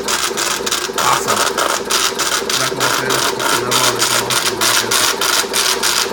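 Index Everest-D V4 braille embosser punching braille dots into paper: a rapid, loud clatter of strikes, several a second, over a low motor hum that comes and goes.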